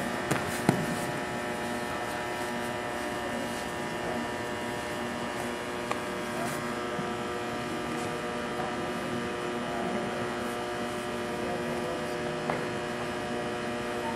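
A steady hum made of several held tones over a low hiss, with a few faint knocks scattered through it.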